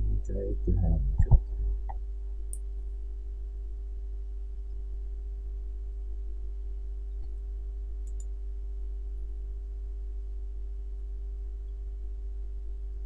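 Steady low electrical hum with a few faint steady tones over it, the background of a screen-recording microphone. A brief bit of voice and a sharp click come in the first second and a half, and light clicks recur now and then after that.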